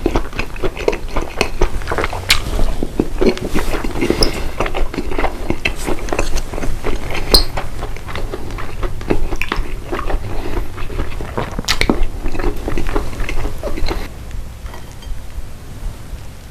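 A person chewing and biting food close to the microphone, with moist crackling and sharp clicks here and there. It gets quieter about two seconds before the end.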